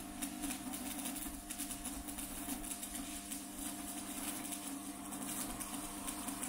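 Electric arc welding on a steel tube frame: the arc crackles and sputters continuously, over a steady low hum.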